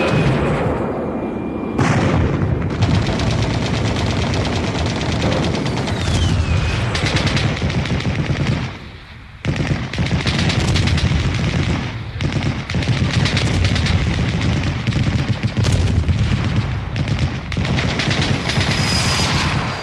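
Battle sound effect of dense machine-gun and rifle fire, rapid shots packed close together, with a brief lull about nine seconds in.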